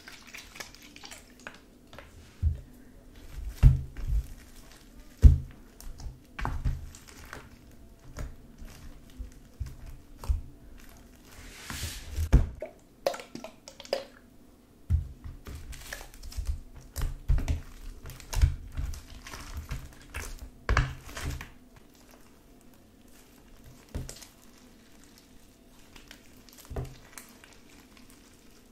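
Homemade glue slime being kneaded and pressed by hand in a plastic tub: irregular bursts of wet squishes, clicks and soft thumps, in clusters with short pauses, and a brief crackly rustle about twelve seconds in.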